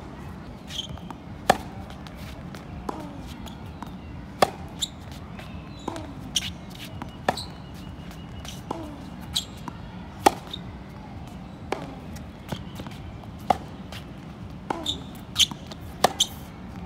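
Tennis ball struck by a racket and bouncing on a hard court in a rally: sharp pops every second or so, hits alternating with bounces, and several in quick succession near the end. Short falling squeaks come between some of the hits.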